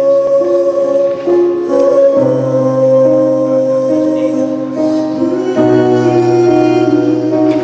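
Solo piano playing slow, sustained chords that change every second or two.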